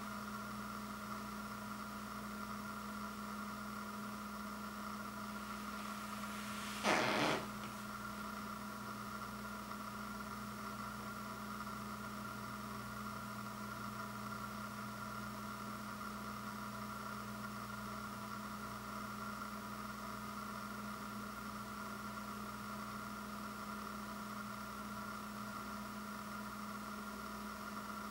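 A steady hum made of several constant tones over a faint hiss, with one short noisy burst about seven seconds in.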